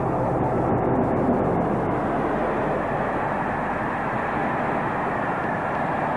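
Diesel locomotive running, a steady muffled engine rumble.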